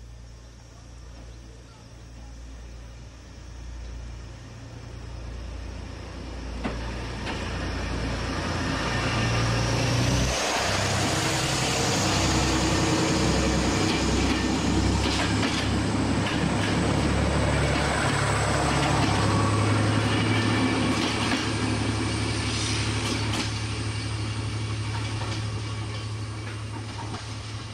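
Stainless-steel diesel railcar train passing close by: a low diesel engine drone and the rush of wheels on rail, with scattered clicks. It swells from about six seconds in, is loudest through the middle, then fades as the train draws away.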